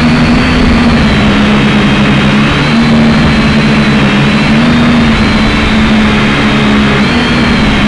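Syma X5C quadcopter's four small brushed motors and propellers whining steadily right at the onboard camera's microphone, the pitch stepping slightly up and down as the throttle changes.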